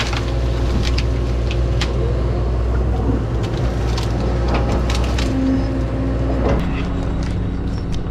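Excavator's diesel engine running steadily under load as the machine pushes brush onto a burn pile, with branches cracking and snapping now and then. The engine drone drops away about six and a half seconds in.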